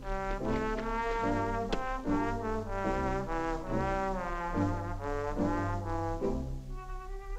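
Orchestral cartoon score led by trombone and trumpet, playing a lilting phrase of held, wavering notes over a steady low bass line.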